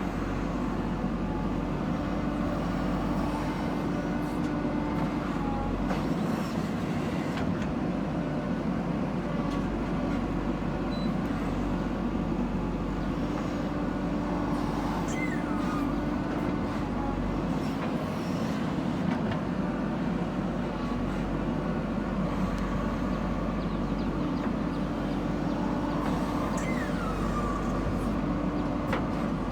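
JCB 3DX backhoe loader's diesel engine running steadily while it works, with a few light knocks and brief squeaks over the drone.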